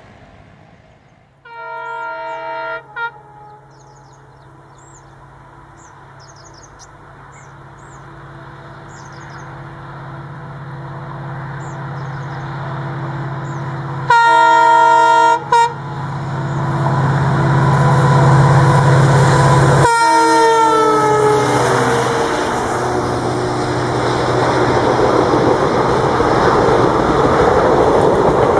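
WDG-4 (EMD GT46MAC) diesel locomotive approaching with a train. Its horn sounds twice, each blast about a second and a half long with a short toot after it, while the engine's hum grows louder. About twenty seconds in, a third horn blast drops in pitch as the locomotive passes, followed by the steady rumble of the train going by.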